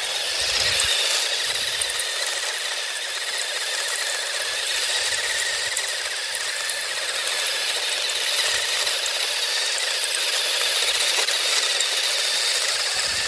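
Electric motor of a radio-controlled model whining steadily at high pitch, wavering slightly up and down.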